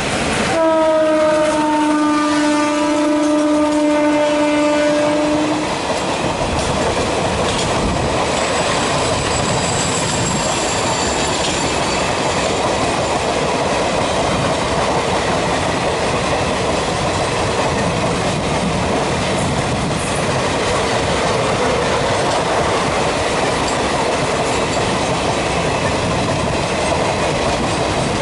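WAP-1 electric locomotive horn sounding one long blast of about five seconds, slightly falling in pitch. It is followed by the steady rumble and clickety-clack of the express train running slowly over the track.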